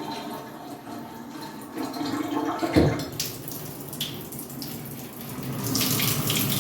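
Water running from a newly installed shower head and handheld shower, spraying into the tub. There is a single knock just under three seconds in, and the spray gets louder near the end.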